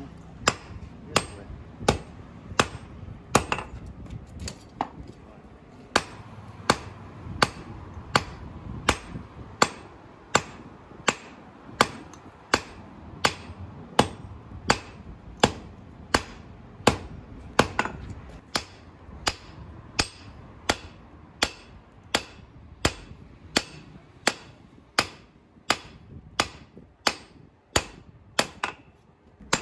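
Hand hammer forging a red-hot steel knife blade on a piece of railway rail used as an anvil. The blows are sharp and evenly paced, about three every two seconds.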